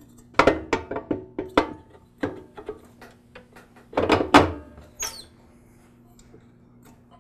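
Metal flywheel clinking and clunking against the crankshaft spindle as it is slid on and turned by hand to line up with the woodruff key. A string of sharp metal knocks, some briefly ringing, with the loudest cluster about four seconds in and a short scrape just after.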